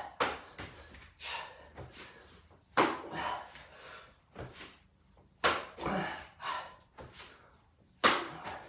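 A man doing press-up reps on an exercise mat: repeated thuds and slaps of hands and body with sharp breaths, a loud one about every two and a half to three seconds and softer ones between.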